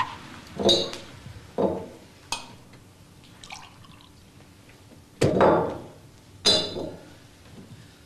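Glass clinking as liquor is poured from a glass decanter into a tumbler: five separate knocks of glass on glass, several with a bright ring, and a short pour of liquid.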